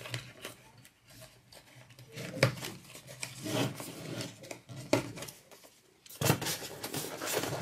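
Hands handling unboxing items: light clicks and rubbing as a small accessory is fiddled with, then, about six seconds in, louder scraping and rustling as the foam packaging tray is moved.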